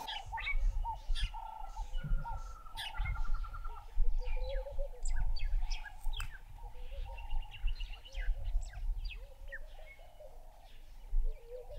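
Wild birds calling and chirping over one another: many short chirps, a few quick trills and repeated mid-pitched calls, over a faint low rumble.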